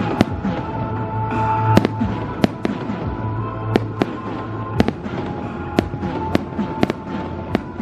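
Aerial fireworks bursting in quick, irregular succession, about a dozen sharp bangs, over background music with long held notes.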